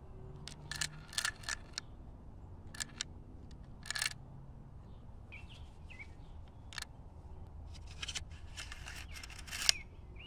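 Brass .22 LR cartridges clicking and rattling as they slide from a loading tube into the buttstock magazine tube of a Winchester Model 63 rifle, a few at a time. Near the end the spring-loaded inner magazine tube rattles in and seats with one sharp, loud click.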